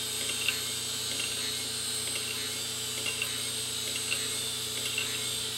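Open 1997 Fujitsu 2.4 GB hard drive running with its lid off: a steady hum and whine from the spinning platters, with a few faint ticks as the read-write head arm shifts over the pitted platters. The drive is wrecked: its platters are deeply pitted and its head is thought to be ground down, so nothing can be read from it.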